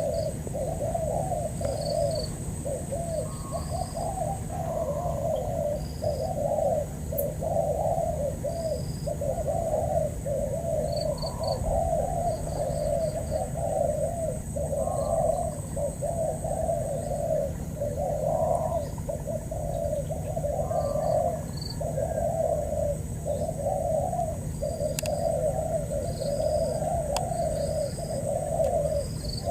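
Spotted doves cooing over and over, one short phrase after another with hardly a break, as a decoy and a wild dove call back and forth. Short high chirps from smaller birds come in now and then.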